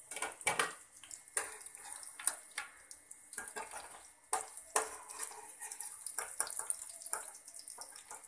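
Fish pieces sizzling in hot oil in a frying pan, with a steady hiss, while a metal spatula scrapes and taps against the pan again and again, lifting the browned pieces out onto a plate.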